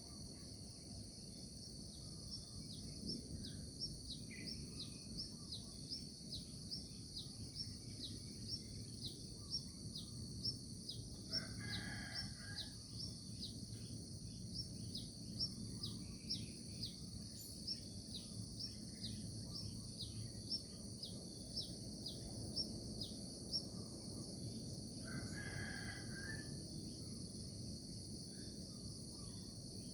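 Morning nature ambience: a steady high insect drone, with a bird chirping short falling notes over and over through most of it. Two brief louder bird calls, about a second each, come near the middle and near the end, over a low background rumble.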